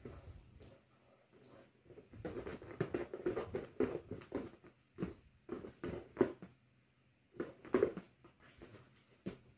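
Puppy chewing and gnawing on something held between its paws, in irregular bursts of short mouthing sounds with pauses between.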